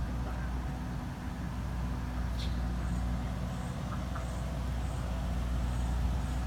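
Steady low engine rumble, with faint high chirps repeating about twice a second over it.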